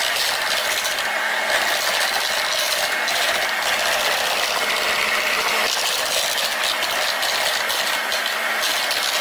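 Bosch electric hand mixer running steadily with its whisk beaters turning in a plastic measuring jug of yeast water, mixing in the salt and sugar.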